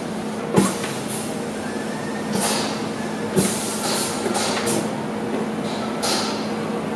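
P5000 semi-automatic volumetric filling machine filling two one-litre bottles through its air-powered rotary valve and diving nozzles. There is a steady hum, a sharp clack about half a second in, then short hisses of air every second or so as the pneumatic parts move.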